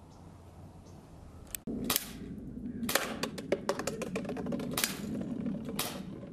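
Air pistol shooting .177 BBs: several sharp pops over a few seconds with lighter clicks in between, starting about one and a half seconds in, over a low steady background noise.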